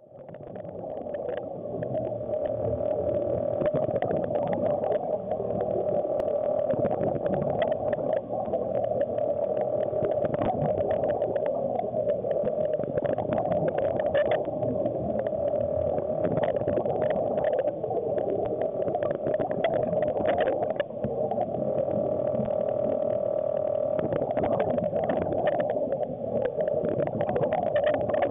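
Underwater sound picked up by a submerged camera: a steady droning hum with many small clicks and crackles. It fades in over the first couple of seconds.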